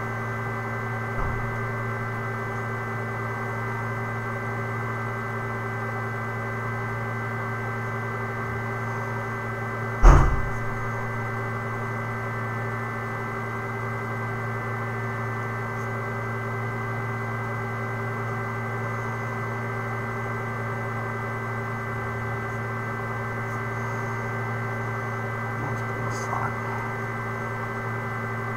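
Steady electrical hum made of several held tones over a flat hiss, with one sharp thump about ten seconds in.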